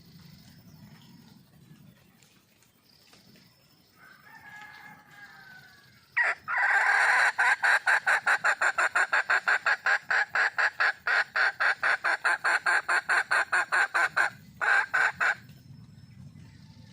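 Red junglefowl hen calling for a mate: a soft call about four seconds in, then a loud, rapid run of cackling notes, about four a second, lasting some nine seconds.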